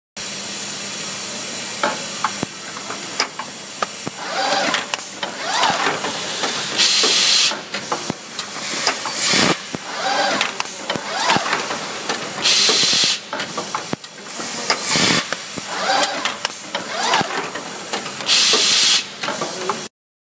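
Automatic packaging machine running through its cycle: motors whirring up in pitch and parts clacking, with a loud blast of pneumatic air exhaust hissing three times, about every six seconds.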